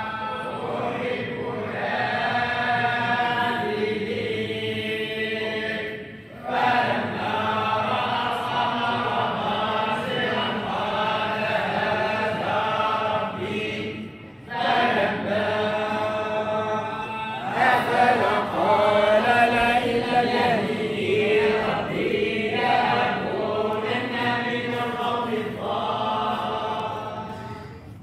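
Mosque congregation chanting together in unison, long melodic devotional phrases broken by short pauses about 6 and 14 seconds in.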